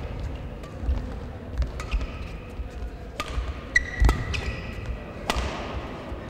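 Badminton rally in a sports hall: racket strokes on the shuttlecock and players' footfalls thumping on the court floor, with a drawn-out shoe squeak about four seconds in.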